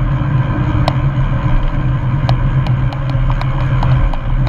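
Road traffic noise heard while riding a bicycle through a busy city roundabout: a steady low rumble with a hum in it, and scattered sharp ticks through it.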